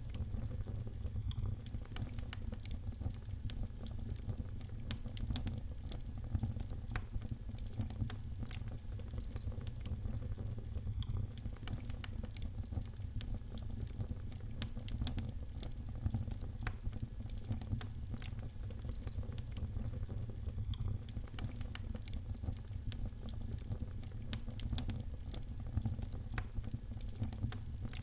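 Fireplace fire crackling, with frequent small irregular pops and snaps over a steady low rumble.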